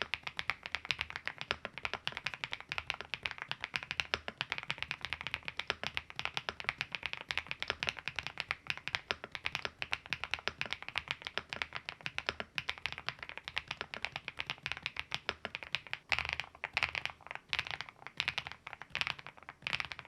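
Fast, continuous typing on an ABKO A108K wireless mechanical keyboard: a dense patter of keystrokes. About three-quarters of the way in, the keystrokes become sparser and more separated.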